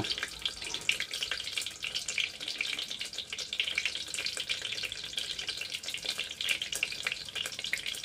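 Sausages frying in hot oil in a lidded pan: a steady, dense sizzle with many small crackling pops.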